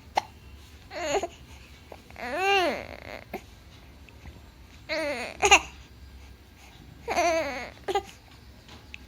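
Baby with hiccups fussing in about five short whiny calls. The longest, about two seconds in, rises and falls in pitch. Brief sharp catches fall between the calls, one right at the start.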